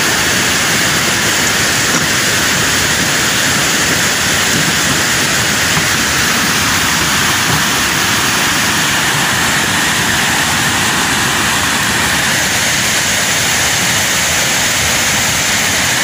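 Water pouring over a low stepped weir and rushing down river rapids: a steady, even rush of white water.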